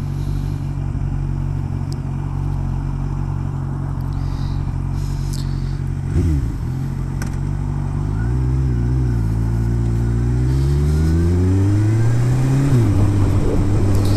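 Kawasaki ZX1000's inline-four engine idling steadily, a quick throttle blip about six seconds in, then pulling away, its pitch rising steadily and dropping at a gear change near the end. A pleasantly hoarse little engine note.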